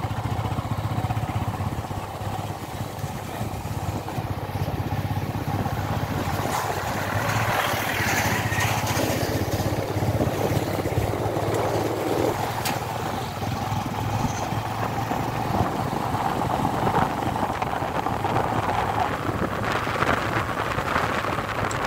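Motorcycle engine running steadily while riding, mixed with wind and road noise.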